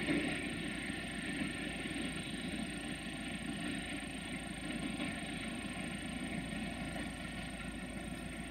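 BR232 'Ludmilla' diesel locomotive's engine running steadily, slowly getting fainter.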